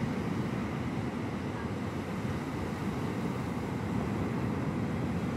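Steady low rumble of wind buffeting the microphone, mixed with the wash of small waves breaking on a sandy beach.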